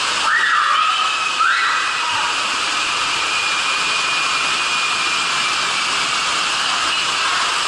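Water rushing down a waterslide tube under a riding inner tube, a steady loud hiss. Two brief high-pitched squeals sound about half a second and a second and a half in.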